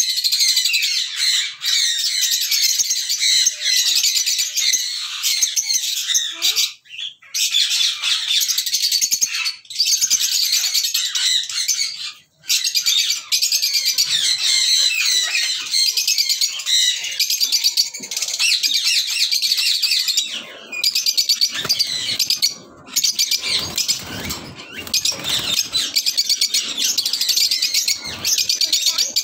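A flock of caged lovebirds chattering and squawking without pause, a dense shrill chorus broken by a few brief lulls.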